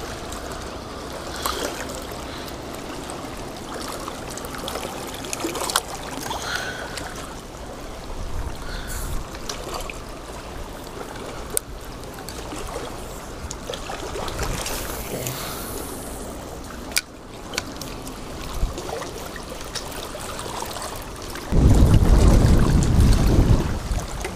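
Shallow water lapping and trickling over rocks at the shoreline, with scattered light clicks. Near the end, wind buffets the microphone loudly for a couple of seconds.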